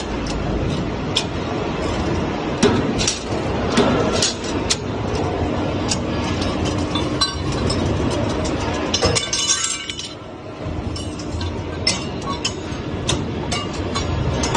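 CNC flat-bar punching, cutting and bending machine running automatically, forming steel pipe clamps. A steady machine noise runs under many irregular sharp metallic clinks and knocks, with a short hiss about nine seconds in.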